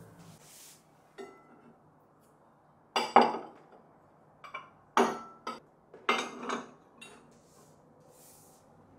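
White ceramic bowls and plates clinking as they are set down and stacked on a table: a few separate clinks, the loudest about three seconds in, then a quick run of them between about five and six and a half seconds.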